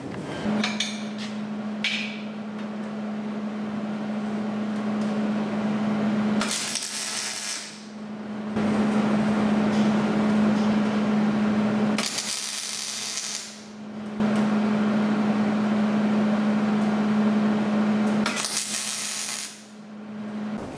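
Wire-feed (MIG) welder arc-welding steel: a steady buzz in several runs of a few seconds each, with short pauses between. These are stitch and tack welds on a scrap-steel brace.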